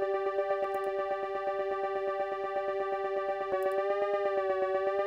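A held synthesizer note played through a chorus effect, with a fast, even pulse in it; about three and a half seconds in the tone gains a slow wavering in pitch as the chorus modulation is changed.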